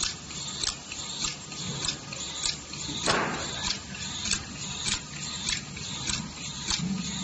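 Semi-automatic capsule filling machine running, its capsule-loading head clicking in a steady rhythm of about one stroke every 0.6 s as it drops empty capsules into the rotating ring plate, over a low motor hum. A brief hiss comes about three seconds in.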